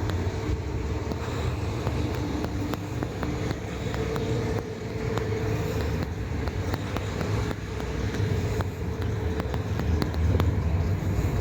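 Steady low rumble of road traffic, with faint clicks and taps throughout.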